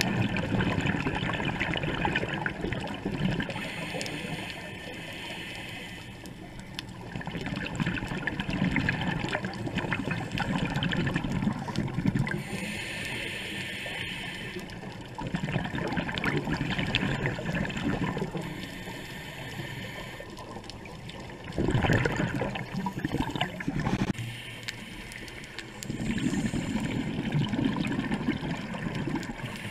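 Scuba breathing through a regulator underwater: surges of bubbling, gurgling exhaled air every few seconds, with a fainter hiss between them.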